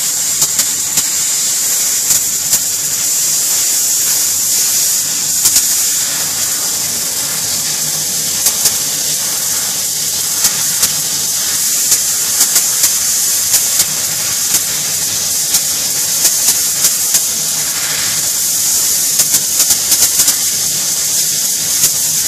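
Compressed air-assist hissing steadily through the nozzle of a 120 W CNC laser engraver's head while it engraves a plastic phone case, with many short sharp ticks scattered throughout.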